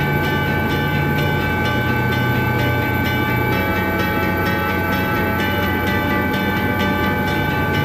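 Helicopter cabin noise in flight: a steady, loud drone of the rotor and turbine engine, with steady high whine tones over it.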